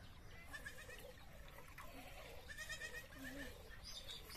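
Faint goat bleats, a few short calls in two clusters, over a quiet farmyard background.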